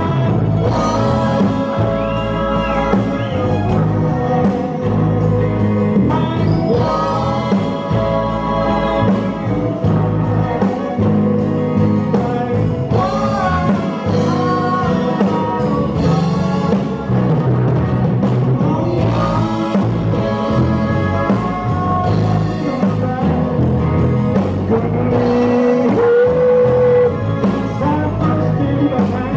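Live country-rock band playing, with a man singing lead over acoustic guitar, electric guitar, electric bass and drums.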